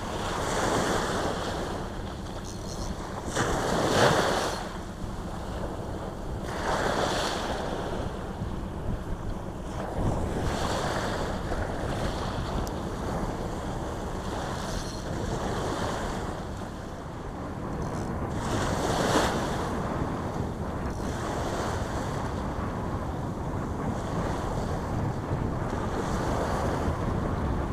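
Small waves breaking and washing up a sandy beach, surging every few seconds, with wind buffeting the microphone.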